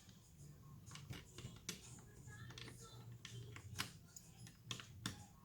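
Faint, irregular clicks and light taps of chainsaw parts being handled and pressed into place during assembly.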